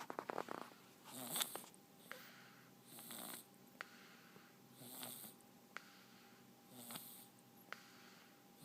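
A sleeper snoring in a slow, even rhythm, about one snore every two seconds, with a short sharp click between snores.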